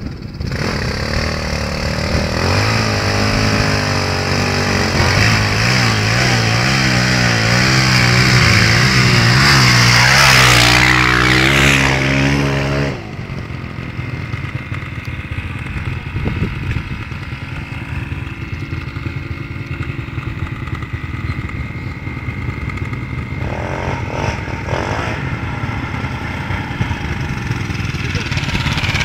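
Off-road dirt bike engines running close by and being revved, their pitch wavering up and down. About halfway through the sound drops suddenly to a quieter, more distant motorcycle running steadily, which grows louder again near the end.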